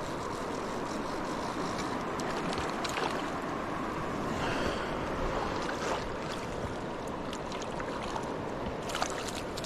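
Steady rush of flowing river water, with a few light clicks near the end.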